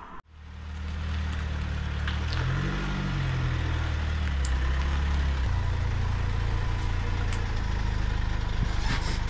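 Van engine idling steadily, with a brief rev that rises and falls about three seconds in.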